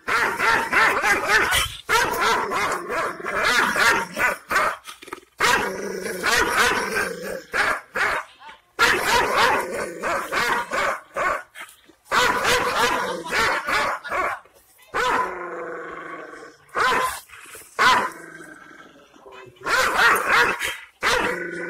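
Aksaray Malaklısı shepherd dog barking and growling angrily in long, almost unbroken runs, which thin out to shorter bursts after the middle.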